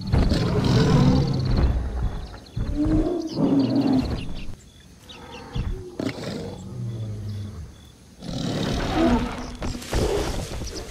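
Large animal roaring and growling in about four separate bursts, each a second or two long, the loudest at the start.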